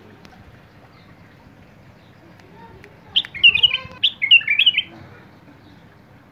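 A caged white-eared bulbul singing one short phrase of quick whistled notes about three seconds in, lasting under two seconds.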